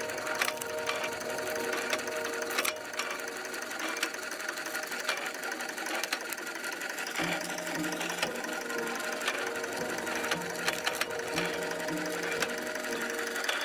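Machinery of an early steam-driven wood splitter running with a rapid, steady mechanical clatter, a steady hum and frequent sharp knocks; a lower hum joins about seven seconds in.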